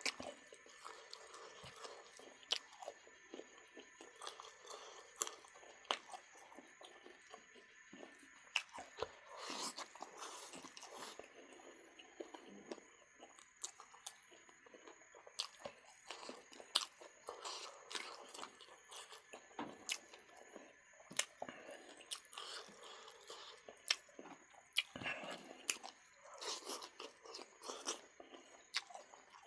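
A person chewing and biting into duck, with frequent irregular sharp crunches and clicks.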